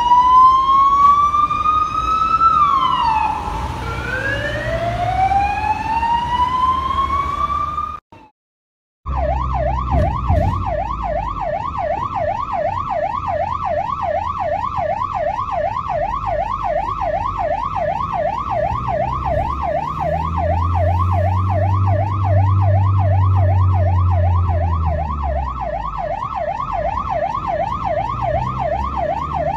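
Spanish ambulance siren: a slow wail rising and falling in long sweeps, then after a second's break a fast yelp cycling up and down about three times a second. A low vehicle engine rumble runs underneath.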